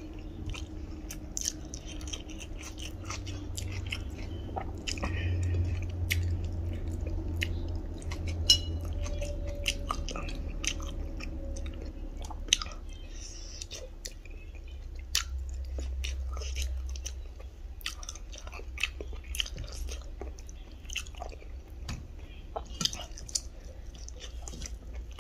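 Close-up chewing of a mouthful of rice and pork-leg pickle, with many sharp clicks scattered throughout.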